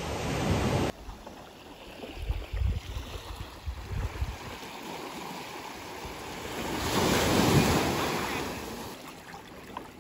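Small waves washing in over the shallows, with gusts of wind buffeting the microphone; one wash swells up and falls away about seven seconds in.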